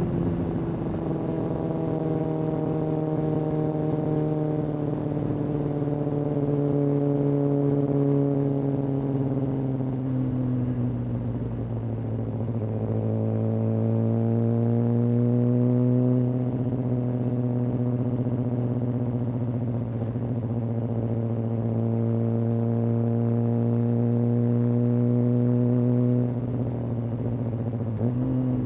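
Kawasaki ZX-6R inline-four running through a Hindle aftermarket exhaust while riding at moderate revs. The engine note sinks slowly for about twelve seconds, climbs a little and holds steady, then drops near the end, followed by a short blip.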